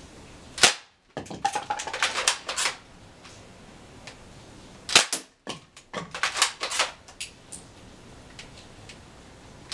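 Stinger R36 spring airsoft rifle firing BBs, three sharp snaps a little over four seconds apart, the first two each followed by a second or two of rapid clattering clicks.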